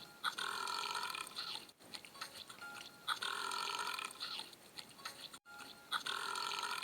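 Cartoon burp sound effect of Gary the Snail, heard three times about three seconds apart as the same looped clip repeats. Short clicks come between the burps.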